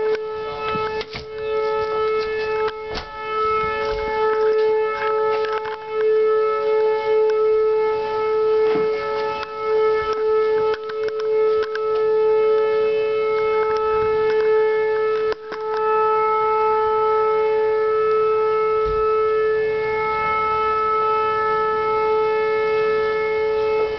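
Civil-defence tsunami warning siren sounding one long steady tone, swelling and fading in loudness.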